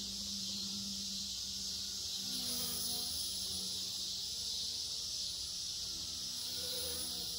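Blade mCP X BL2 small electric RC helicopter flying, its brushless motor and rotor whine bending up and down in pitch as it manoeuvres. A steady high-pitched insect chorus runs under it and is the loudest sound.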